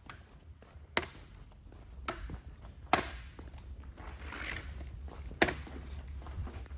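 A few sharp knocks and clicks, the loudest about a second, three seconds and five and a half seconds in, with a brief rustle between them, over a steady low hum.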